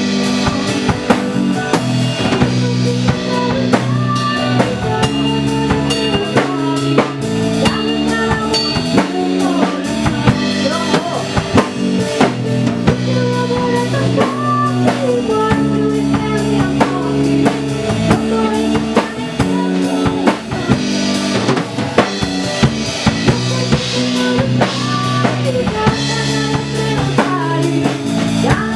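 A band playing an instrumental passage: a drum kit keeps a steady beat with snare and bass drum, under sustained bass and chord notes and a gliding melody line on top.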